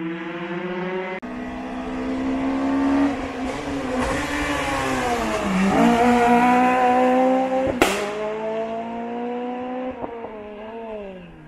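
Hill-climb race car's engine working hard up a mountain road, the revs rising in steps through gear changes, dropping about five seconds in and then climbing again. A single sharp crack about eight seconds in.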